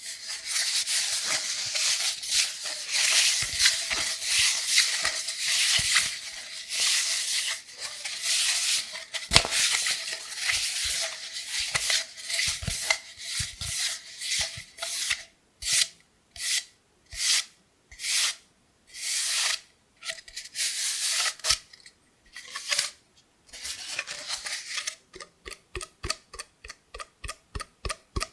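Cardboard kitchen-roll tube being scratched and rubbed: continuous scratching at first, breaking into separate strokes about halfway, then quick light taps near the end, about three a second.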